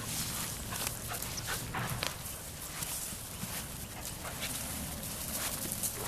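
Puppies making brief, high whimpering sounds amid scuffling and rustling.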